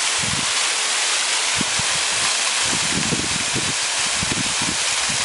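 Waterfall in full flow after heavy rain: a steady, loud rush of falling water. From about halfway through, it is joined by irregular low rumbling of wind buffeting the microphone.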